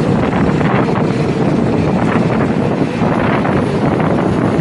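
Wind rushing steadily over the microphone on the open top deck of a moving double-decker bus, mixed with the bus's travel noise.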